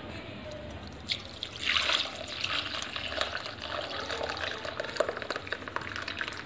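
Lemon-curdled milk poured from a steel pot into a cloth-lined strainer: the whey splashing and trickling through the cloth as the paneer is strained out. A light click about a second in, then a steady splashing pour, loudest just after it starts.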